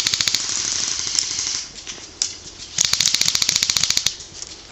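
Airsoft guns firing on full auto: a rapid, even rattle of shots in two bursts, the first stopping about one and a half seconds in and the second running from about three to four seconds in.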